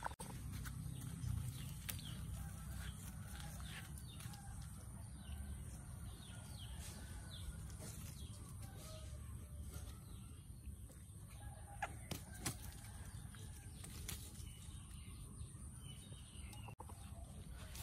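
Leaves and thin branches of a small sapling rustling and knocking as a young macaque climbs, hangs and swings on it, with scattered sharp clicks. Faint short calls and a steady faint high hum sit in the background.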